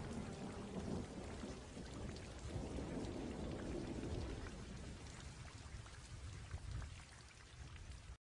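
Rain falling with a low thunder rumble underneath, slowly fading and then cutting off abruptly near the end.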